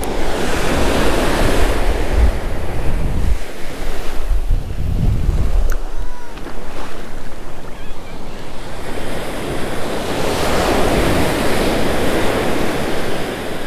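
Ocean surf breaking and washing up the beach in several long surges, with heavy wind buffeting the microphone.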